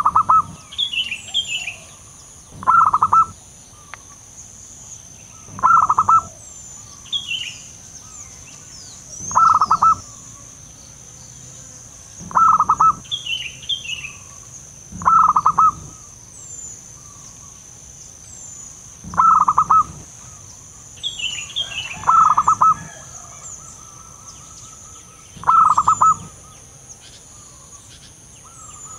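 Zebra dove (perkutut) cooing: a short, rapid, stuttering coo repeated about every three seconds. Other small birds chirp faintly and higher between the coos, over a steady high-pitched whine.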